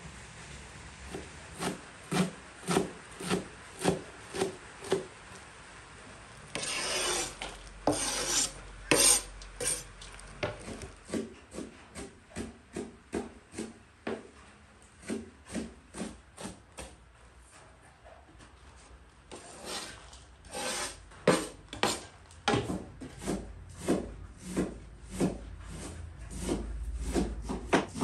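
Knife chopping fresh herbs on a wooden cutting board: a steady run of knocks, about one and a half a second, broken by a few stretches of scraping and rubbing.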